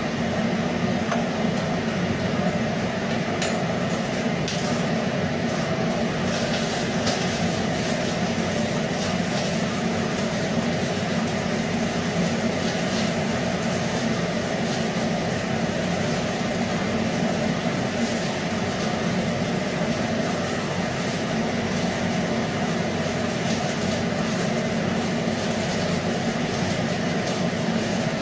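Arc welding on Schedule 40 steel pipe: a steady hiss over a low machine hum, with scattered faint crackles.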